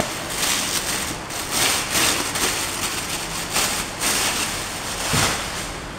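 Clear plastic bag rustling and crinkling irregularly as it is handled and pulled off a folded tripod music stand.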